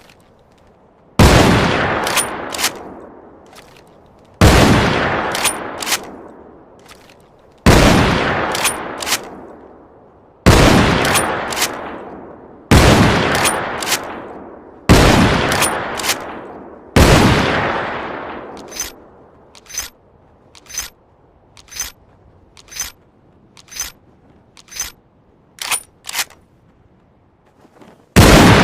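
Winchester Model 1894 lever-action rifle firing seven loud shots a few seconds apart, each with a long echoing tail and followed by two sharp clicks as the lever is worked to chamber the next round. Then comes a run of about a dozen separate metallic clicks, and one more shot near the end.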